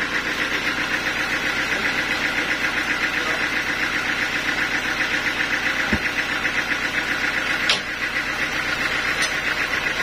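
Band sawmill running steadily with no log in the cut, a fast even pulse under a steady whine. A dull thump about six seconds in and a sharp knock near eight seconds as the heavy log is shifted on the carriage.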